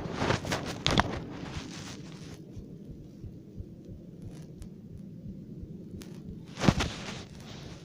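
Close rustling and scraping over a steady low wind rumble. There is a cluster of scraping bursts in the first second and another near the end.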